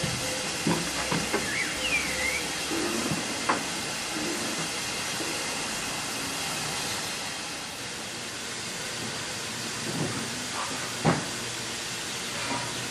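Steady hiss of steam from two standing steam tank locomotives, a BR Standard 4MT 2-6-4T and an LMS 'Jinty' 0-6-0T, with a few scattered clanks and knocks, the sharpest about eleven seconds in.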